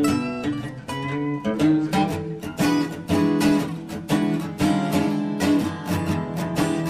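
Background music: acoustic guitar, strummed and picked, with a steady run of notes.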